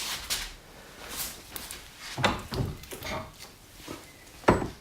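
BMW R80 fork tube being slid out of its fork housing: short metal scraping and sliding noises with scattered knocks, and one sharper knock near the end.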